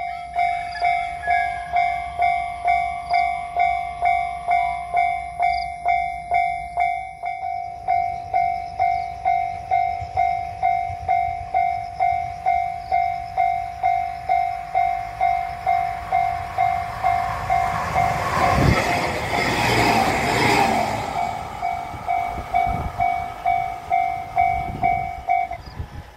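A Japanese railway level-crossing warning bell dinging steadily, about two dings a second. A train passes over the crossing about two-thirds of the way in, its wheel and rail noise the loudest part. The bell stops shortly before the end.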